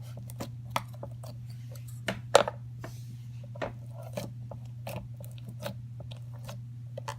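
Slime with microfoam beads being squeezed and worked by hand, giving irregular crunchy clicks and pops, the loudest a little over two seconds in, over a steady low hum.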